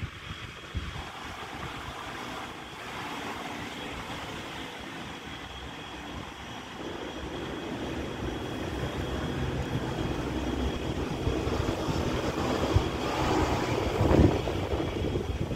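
SRT Red Line electric train running slowly into the station, its running noise growing steadily louder as it approaches, with a faint steady high whine throughout and a louder bump near the end.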